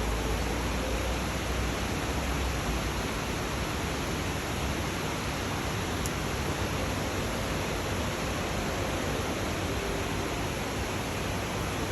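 Steady rain, an even hiss, with a low rumble underneath that stops about two and a half seconds in.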